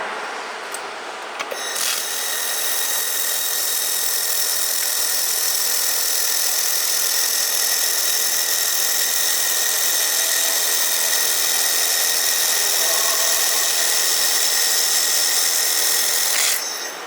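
Air-cooled 1500 W handheld laser welder with single wire feed welding stainless steel: a steady hiss with a faint high whine starts about two seconds in, holds for about fourteen seconds, then cuts off near the end.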